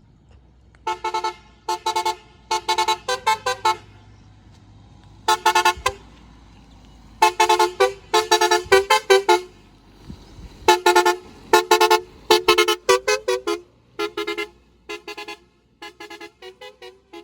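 Roots HexaTone multi-tone electric car horn on a Maruti Suzuki Swift Dzire playing one of its preset patterns: groups of rapid short toots, some switching back and forth between two pitches, separated by short pauses. The groups near the end are quieter.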